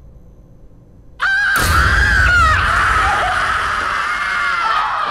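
A woman lets out a sudden, loud, high-pitched scream about a second in and holds it, the pitch wavering, with a deep rumble underneath for the first couple of seconds.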